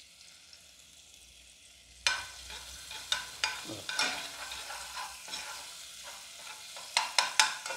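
Chopped garlic sizzling in olive oil in a metal pot while a utensil stirs it, scraping and tapping the pot. The sizzle and stirring come in suddenly about two seconds in, with a few sharp taps near the end.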